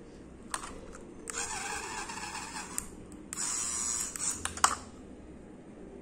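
Handling noise from plastic Lego bricks: a few sharp clicks and two stretches of scratchy rubbing as hands press and shift the bricks on the model plane's body.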